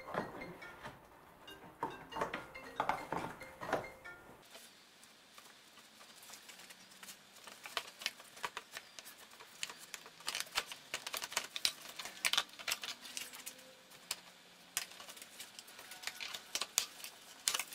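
Irregular clicks, taps and light plastic rattles as a car's plastic engine undertray and its fasteners are worked loose by hand and with a tool. The first few seconds carry background music.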